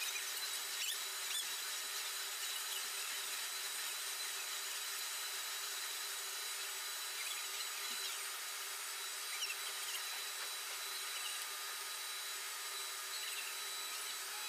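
Steady hiss with a faint, even high-pitched whine and no distinct knocks or events.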